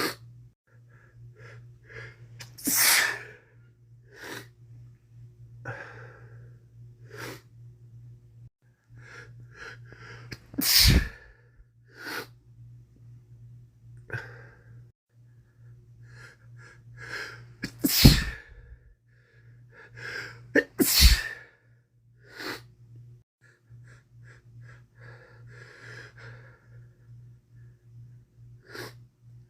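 A man with a head cold sneezing four times, each sneeze loud and sudden, spread out across the half-minute. Shorter, fainter sniffs and breaths come between the sneezes.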